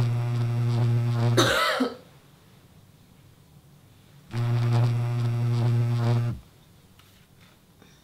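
Mobile phone vibrating on a wooden bedside table: two buzzes of about two seconds each, a couple of seconds apart, each sagging in pitch as it stops. A brief sharp sweeping noise comes at the end of the first buzz, and a few faint clicks come near the end.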